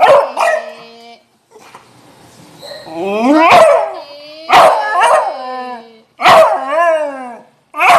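Beagle-type hound barking and howling: a couple of short barks at the start, then about four drawn-out howling barks, each about a second long and sliding down in pitch.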